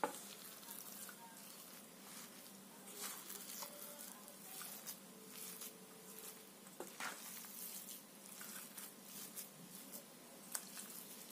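Faint stirring of a crumbly mashed tofu and shredded chicken filling with a metal spoon in a stainless steel bowl: soft scraping and squishing, with scattered light clicks of spoon against bowl.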